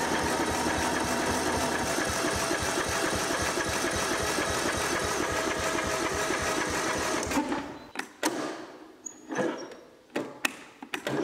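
Electric starter cranking a Briggs & Stratton 17.5 HP riding-mower engine, turning it over with an even rhythmic chug without it catching; the cranking cuts off after about seven seconds, followed by a few short clicks and brief bursts. The engine is flooded with petrol, which the owner puts down to a dirty carburetor, and the battery is running down.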